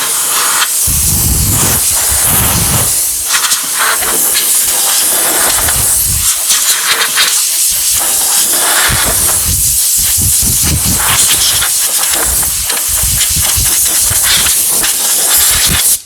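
Steady, loud hiss of a pressurized nozzle blasting into a sheet-metal toolbox, cutting off suddenly near the end, with scattered low thumps.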